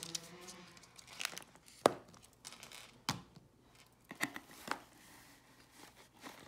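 Cardboard subscription box and its foam packing being handled: scattered sharp clicks and rustling as a plastic cosmetics tube is worked out of the foam.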